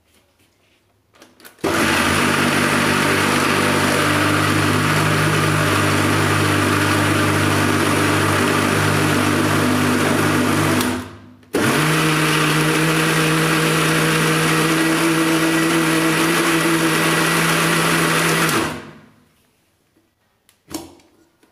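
Usha mixer grinder motor running at full speed, grinding soaked dal with a little water into a smooth paste. It starts about two seconds in, stops briefly about halfway, starts again, and spins down near the end.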